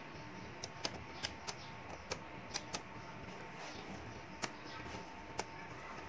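Small magnetic balls clicking as they snap together and are set down on a table: about nine sharp clicks at uneven intervals, over a faint steady hiss.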